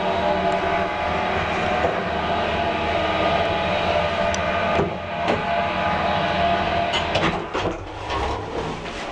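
Old Express passenger lift car travelling: a steady mechanical hum and rumble with several held tones. It eases off about seven and a half seconds in, with a few sharp clicks near the end.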